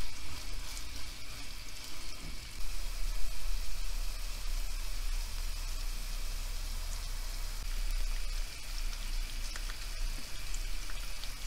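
Sliced onions and red peppers sizzling steadily in hot olive oil in a frying pan as they sauté.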